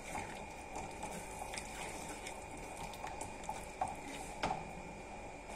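Spinach purée cooking in a pan as it is stirred with a wooden spatula: a faint, steady sizzle and bubble, with a few light taps of the spatula against the pan.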